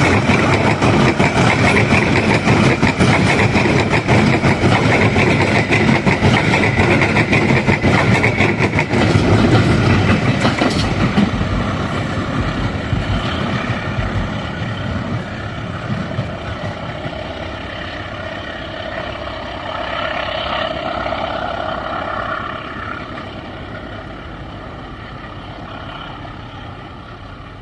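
Passenger train passing close by, a loud rumble of wheels on rail that fades steadily over the second half as the train moves off.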